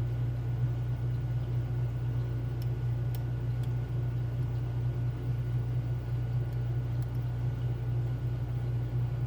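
A steady low hum, over which a lock pick and tension wrench working inside a Schlage Primus cylinder make a few faint, short ticks.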